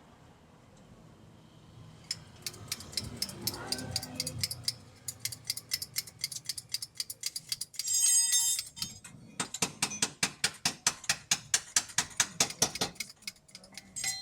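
Hand ratchet wrench clicking in fast, even runs of about five or six clicks a second as a bolt is turned on the suspension, with a louder ringing metal clatter about eight seconds in.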